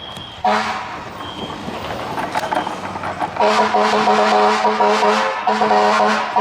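Fire-truck air horn mounted on a bicycle, sounding a chord. It gives a short toot about half a second in, then a long blast from about three and a half seconds, a brief break, and another blast near the end.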